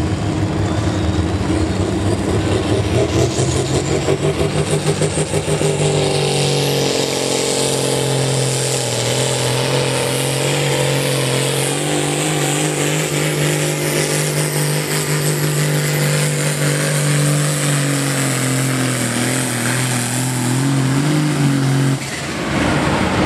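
Diesel pulling tractor engine revving up at the start of a pull, then running hard at high, fairly steady revs as it drags the weight sled down the track. The sound cuts off abruptly near the end.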